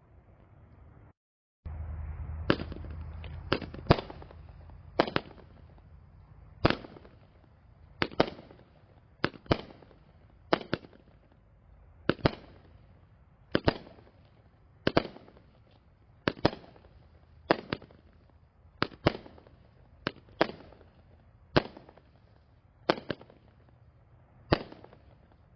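A 200-gram, 16-shot consumer firework cake firing: a string of sharp reports, about one every one to one and a half seconds, each trailing off in a short echo.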